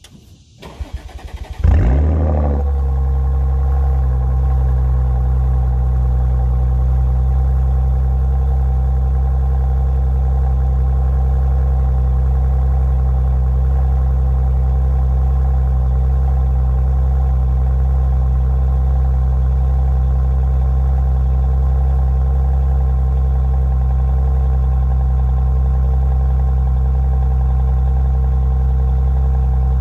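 Audi S4 cold-started through an Armytrix cat-back valved exhaust: the starter cranks for about a second, the engine catches with a sudden loud flare, then settles into a steady idle.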